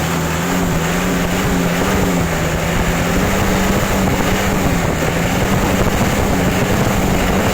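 Vehicle engine revved up and held at a raised, steady speed, its pitch creeping slightly higher over the first few seconds.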